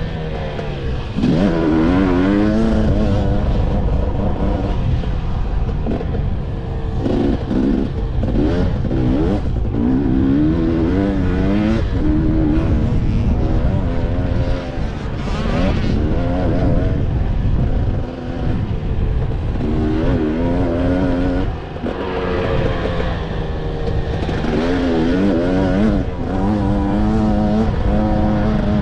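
Dirt bike engine heard from on board the bike, revving up and falling back again and again as the rider accelerates, shifts gears and rolls off over the track's jumps.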